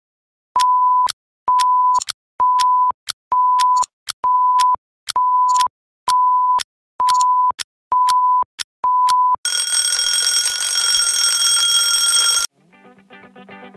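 Countdown timer beeping ten times, a steady single-tone beep with a click just under once a second. It is followed by a twin-bell alarm clock ringing loudly for about three seconds, which cuts off suddenly. Soft music starts near the end.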